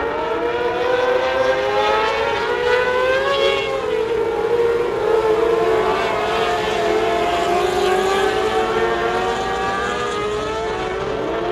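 A pack of mini sprint cars racing. Several engines overlap at high revs, each one's pitch rising and falling as the cars accelerate and lift through the turns, and the sound is loudest as a car passes close about halfway through.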